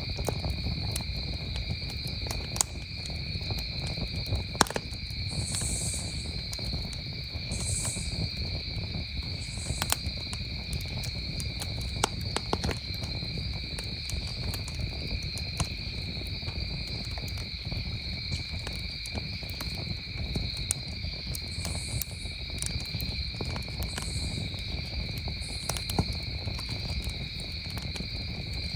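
Wood campfire crackling with scattered sharp pops, over a steady chorus of crickets chirping at a constant pitch.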